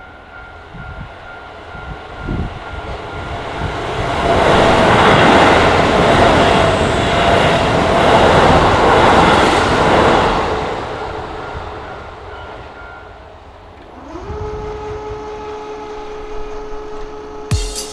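A Keisei train passes over a level crossing: the rumble of the cars swells to its loudest for about six seconds, then fades. Under it a steady crossing warning tone sounds and stops after the train has gone. Near the end a hum rises in pitch and holds steady.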